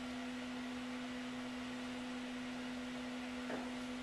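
A steady hum at a single pitch over a background hiss, with one soft knock near the end.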